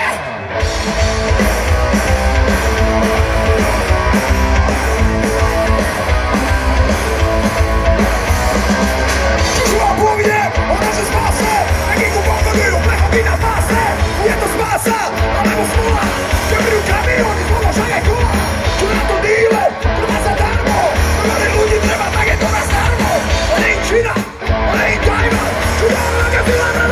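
Live punk rock band playing, with distorted electric guitars, bass and drums, heard from the audience. Voices yell and sing over the music.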